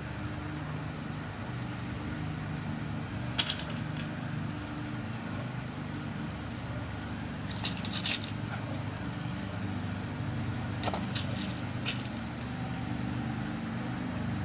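A few sharp, small metal clicks and taps as lock pin tumblers are loaded into a lock cylinder. They are scattered over a steady low hum, with the loudest click about three seconds in and small clusters around eight and twelve seconds.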